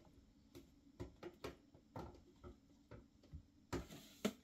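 Faint, irregular clicks and small scrapes of a flexible drain hose being pushed and twisted onto the plastic drain fitting of a Red Sea RSK9 protein skimmer's collection cup, with a louder scrape and a sharp click near the end.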